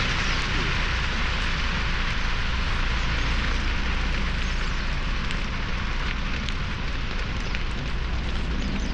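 Dry grass burning in a large controlled burn: a dense, steady crackling hiss with scattered sharp pops over a low rumble of the flames.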